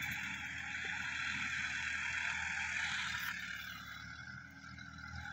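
Sonalika DI-50 RX tractor's diesel engine running steadily under load while pulling a tillage implement through a field, heard from a distance; the sound dips a little about four seconds in as the tractor moves away.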